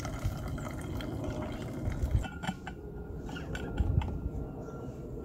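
Hot water poured from a stainless steel pot into a paper coffee filter in a plastic cone over a thermos, brewing pour-over coffee: a steady trickle of liquid. A few sharp clicks and knocks from handling the metal utensils come a little past the middle.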